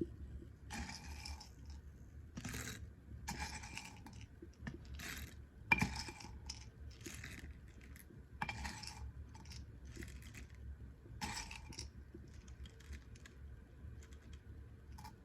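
Coffee beans rattling and scraping in a hand roaster shaken over a campfire. Short rattles come roughly once a second and stop about 12 seconds in.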